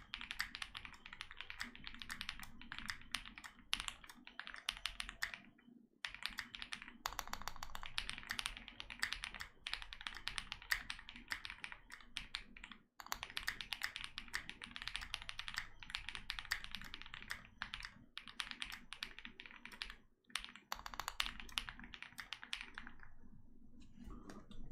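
Fast typing on a Meletrex Zoom65 mechanical keyboard with lubed and filmed Durock POM switches: a dense stream of keystroke clacks in long runs, broken by a few short pauses.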